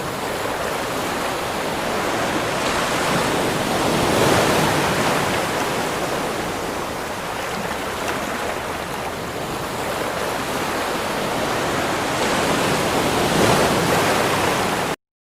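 Ocean waves breaking in a continuous wash of surf. It swells louder about four seconds in and again near the end, then cuts off suddenly.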